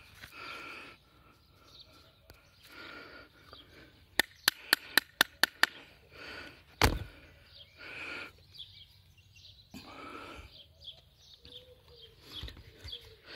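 A piece of very hard, dry wood being handled and struck: a quick run of about seven sharp knocks, roughly five a second, about four seconds in, then one heavier thud about a second later, with softer rustling of the wood in the hands around them.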